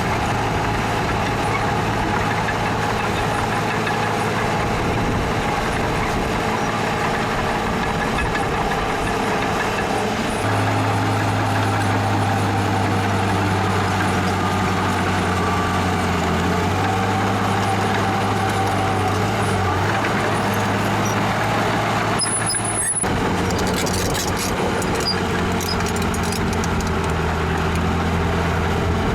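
Heavy diesel earthmoving machinery running steadily, its engine note stepping up under more load about ten seconds in. The sound breaks off for a moment a little past twenty seconds, then the engine carries on with faint metallic clinks.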